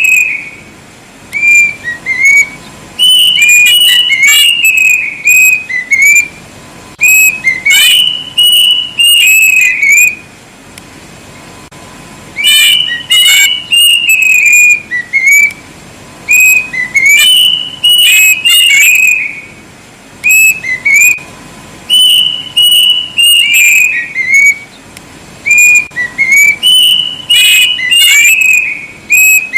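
Kedasih cuckoo (Cacomantis) whistling loudly: phrases of clear whistled notes that step down in pitch, repeated every few seconds with short pauses between.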